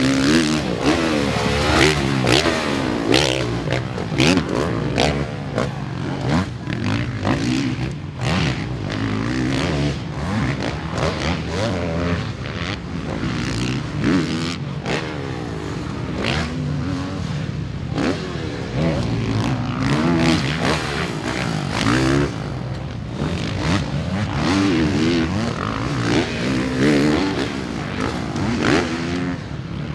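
Honda CRF450R single-cylinder four-stroke motocross bike ridden hard, the engine revving up and backing off over and over as the rider works the throttle and gears, its pitch repeatedly rising and falling.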